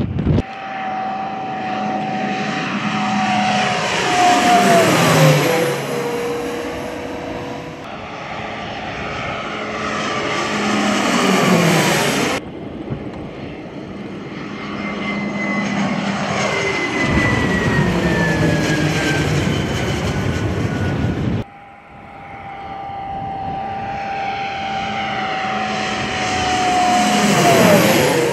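Bayraktar Akıncı drone's twin propeller engines during low passes. A steady high engine hum drops sharply in pitch each time the aircraft goes overhead, several times over, and the sound cuts off abruptly twice between passes.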